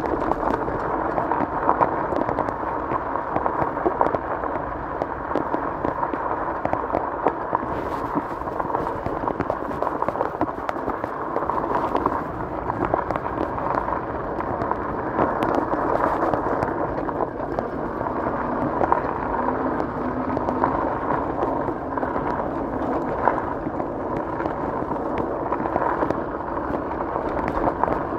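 Bicycle tyres rolling over a gravel trail: a steady crackle of small stones under the wheels, with many tiny clicks packed together.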